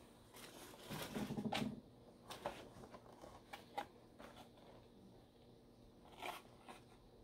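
Handling noise from a small cardboard-and-plastic package being picked up and turned over in the hands: crinkling and rustling with scattered light clicks and taps, loudest in a short burst about a second in.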